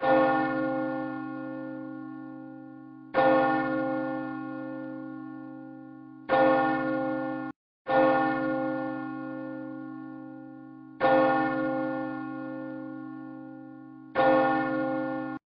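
A church bell tolled six times, about three seconds apart, each stroke ringing and dying away. The strokes come in two sets of three, and the ringing cuts off abruptly after each third stroke.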